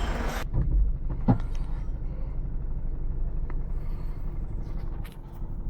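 Diesel car engine idling, a steady low rumble, with a short click about a second in; the mechanic says the engine is missing badly.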